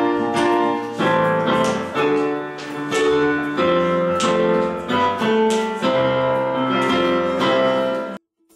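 Yamaha electronic keyboard played in a piano voice: a melody of struck notes over held chords and a bass line, stopping abruptly near the end.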